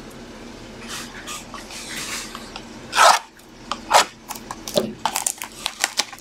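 Plastic shrink-wrap being torn and crinkled off a sealed box of basketball trading cards, with two sharper rips about three and four seconds in.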